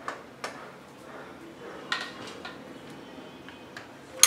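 A few light knocks and scrapes as a wooden spoon drops batter onto the plates of a Sokany electric waffle maker, then a sharp clack near the end as the waffle maker's lid is shut.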